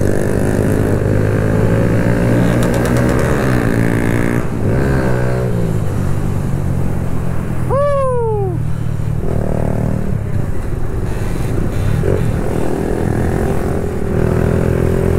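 Kawasaki Z125's single-cylinder engine through an aftermarket full exhaust, riding and changing gear. The engine pitch climbs under throttle and drops at shifts, with road and wind noise. About eight seconds in there is one short falling shout.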